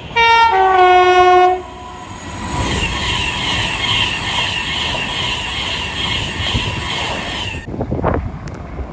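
A train's two-tone horn blows loud: a short higher note, then a longer lower note, about a second and a half in all. Then the train is heard running with a steady rushing noise and a faint repeating beat, which cuts off abruptly near the end.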